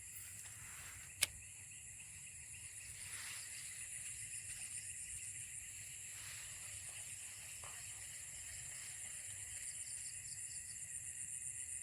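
Faint, steady high-pitched chorus of insects trilling, with one sharp click about a second in.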